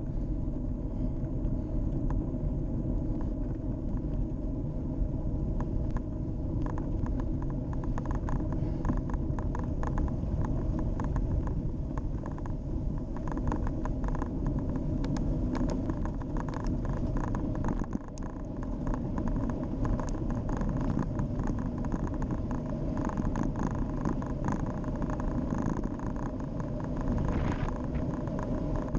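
Scott X40 XC mountain bike riding along a tarmac lane: steady tyre rumble and wind noise on the bike-mounted camera's microphone, with frequent small rattles and clicks from the bike over the road surface.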